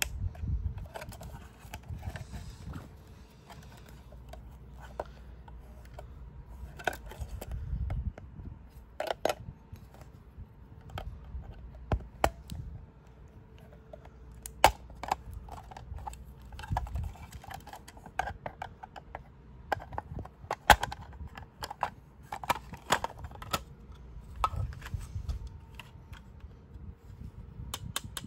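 Irregular clicks, taps and scrapes of hard plastic parts as a Spectralert Classic fire-alarm horn strobe is handled and pried apart with a small screwdriver, with soft handling rustle between them.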